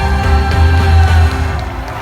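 Live band music played loud through an arena's sound system: a held closing chord over heavy bass, which thins out in the last half second as the song ends.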